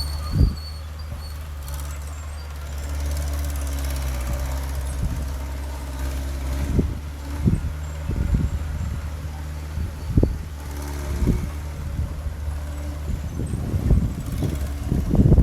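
Heavy diesel engine of an earthmoving machine running steadily at a low drone, with irregular low thuds and clunks from the machine and the material it is moving, coming more often in the second half and bunching together near the end.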